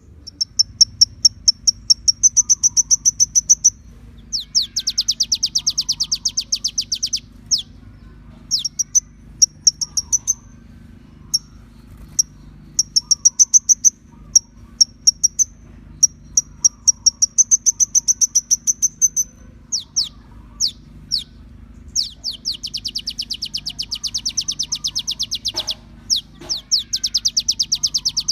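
Sunbird (kolibri ninja) song: high, very rapid trills of many quick chirps in runs of a few seconds, with single sharp chirps between the runs, over a faint low hum.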